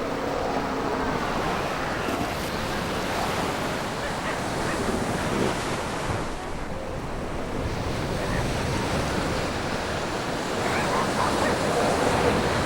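Surf washing onto a beach, a steady rushing with wind on the microphone, and a few faint short calls here and there.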